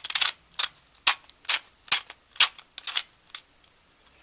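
Threaded aluminium lid being twisted onto a metal roll-film canister, making a run of short, sharp metallic clicks and scrapes, about two a second.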